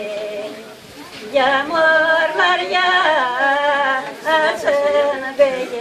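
Elderly Gagauz women singing a folk song unaccompanied. A held note dies away at the start, a new phrase begins about a second and a half in with bending, ornamented pitch, and it ends on a long held note.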